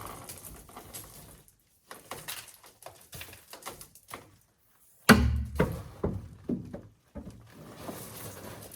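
Scattered knocks, clicks and rustles of hands and tools at work, with a heavy thunk about five seconds in followed by a string of knocks.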